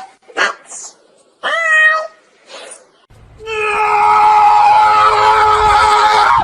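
Kittens meowing: a few short meows that bend in pitch, then one long, steady, drawn-out cry starting about halfway through.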